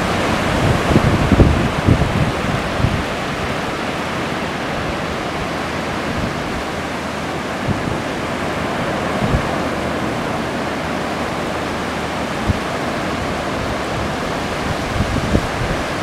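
Small ocean surf breaking and washing up a sandy beach: a steady hiss of waves and foam. Wind buffets the microphone in the first few seconds and again near the end.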